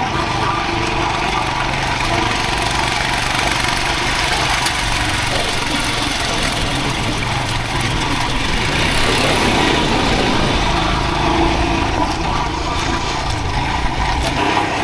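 Motorcycle riding on a rough unpaved road: the engine running steadily under heavy wind noise on the microphone, with a dense low rumble from the bumpy surface.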